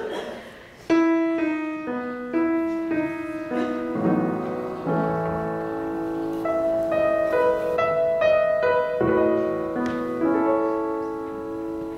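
Solo piano playing the introduction to a musical-theatre song, coming in about a second in with sustained chords and a moving melody line.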